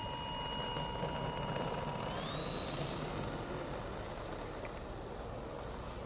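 Electric RC plane's motor and propeller whining, the pitch stepping up about two seconds in as the throttle is advanced, over a steady rushing noise.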